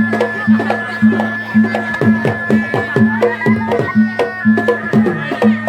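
Traditional Malay folk ensemble playing: a high reedy pipe holds long, slightly wavering notes over a steady beat of about two low drum or gong strokes a second, with quicker hand-drum strokes between them.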